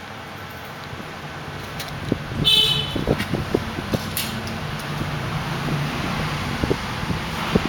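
Road traffic heard in the background, with a short vehicle horn toot about two and a half seconds in, followed by a few light knocks.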